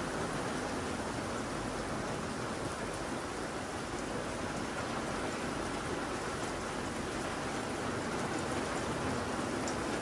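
Steady rain falling, an even hiss of many drops with no pauses.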